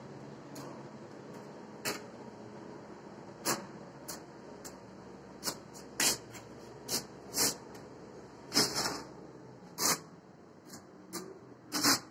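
Steel notched trowel spreading tile adhesive on the back of a stone slab: irregular scrapes and sharp clicks of the trowel on the slab and on the bucket, a dozen or so, with a longer scrape past the middle and a loud knock near the end.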